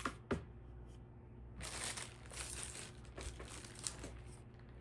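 Packaging crinkling and rustling as parts are handled, with a few light clicks.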